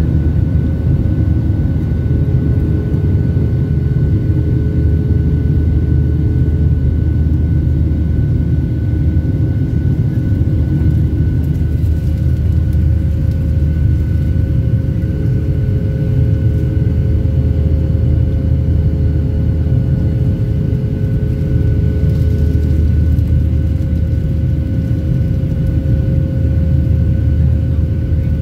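Cabin noise of a Boeing 737-700 climbing out after takeoff: a steady low rumble from its CFM56-7B turbofan engines and the airflow, with faint steady whining tones above it.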